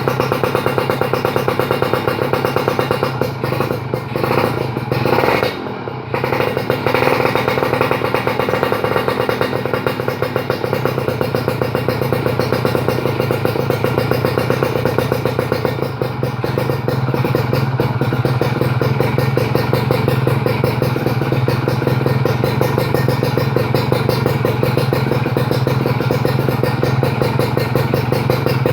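Kawasaki KR150 single-cylinder two-stroke engine running through a stainless expansion chamber and Tyga aluminium silencer. It revs about four to six seconds in, then settles to a steady run.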